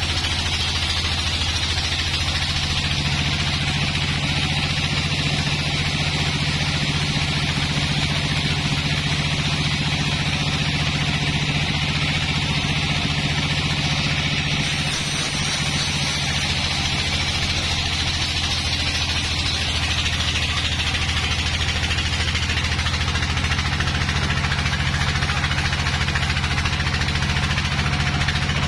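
Band sawmill running with a steady low hum while its blade saws lengthwise through a dry, long-weathered log, a hiss of cutting over the machine. The cutting hiss fades about two-thirds of the way through as the machine keeps running.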